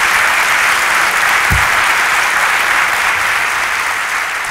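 Conference audience applauding steadily after a talk, with a single low thump about one and a half seconds in.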